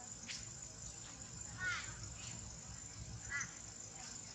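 Steady high-pitched droning of insects, with two short squeaky animal calls, one under two seconds in and another about three and a half seconds in.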